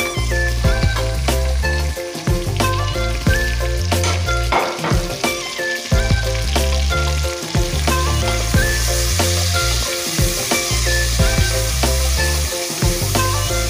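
Chopped red pepper and onions sizzling in hot oil in a stainless steel pot as they are stirred with a spoon; the sizzle grows louder about eight seconds in. Background music with a steady bass beat plays underneath.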